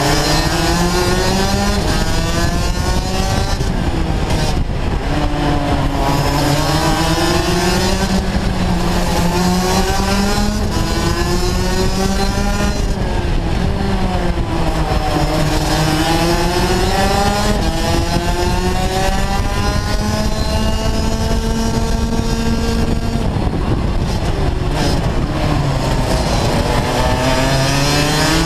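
Rotax DD2 kart's 125 cc two-stroke engine at racing pace, heard from the driver's seat. The revs climb steadily for several seconds and then drop sharply, about three times, as the kart accelerates and brakes for corners.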